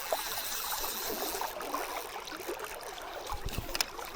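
River water running steadily, with a few faint small clicks.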